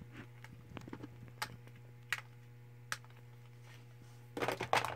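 Plastic blush compacts clicking a few times as they are handled, then clattering against each other near the end. A steady low hum runs underneath.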